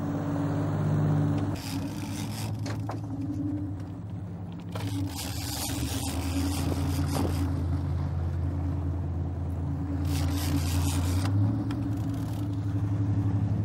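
Sportfishing boat's engines running with a steady low drone. Three short stretches of rushing noise pass over it.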